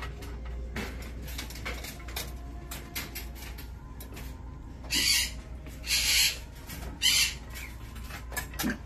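African grey parrot making small clicks and scratches, then three short, harsh, noisy sounds about a second apart, starting about five seconds in.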